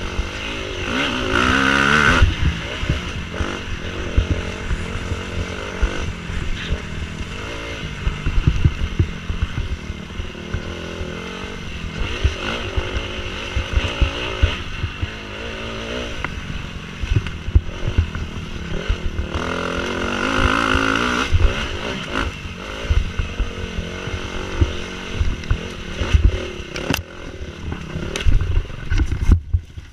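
Dirt bike engine running under load along a bumpy woods trail, revving up hard about a second in and again midway, with frequent thumps and clatter from the bike hitting bumps.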